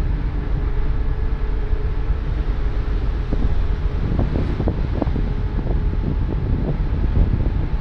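Wind buffeting the microphone on the deck of a car ferry underway, over a steady low rumble from the ship. The wind flutters more irregularly from about three seconds in.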